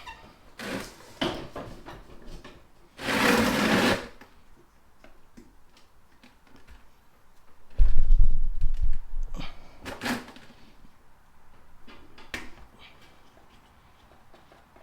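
Scattered knocks and clatter from handling a push mower and a makeshift drain pan while the oil is drained. There is a short rushing noise about three seconds in and a loud, low, dull thud around eight seconds.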